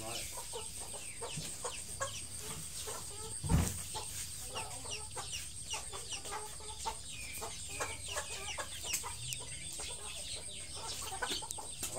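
Chickens clucking in the background, with many short, high, falling chirps scattered throughout. A single dull thump comes about three and a half seconds in.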